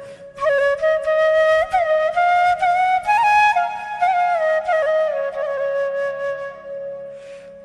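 Background music: a solo flute melody with sliding notes, fading out near the end.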